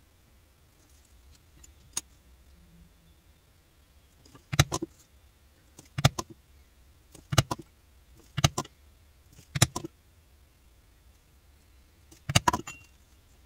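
Six short, sharp clacks and knocks, roughly one to three seconds apart, from leather pieces and a metal-handled marking tool being handled and set down on a rubber leathercraft work board.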